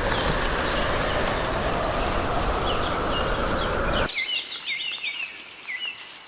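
Small birds chirping over and over in short hooked calls, over a steady rushing noise that cuts off suddenly about four seconds in.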